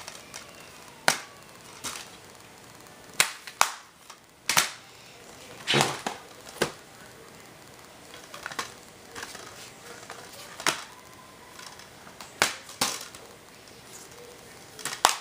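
A dozen or so sharp clicks and knocks at irregular intervals, a few with a short ring after them, over a low steady background hiss.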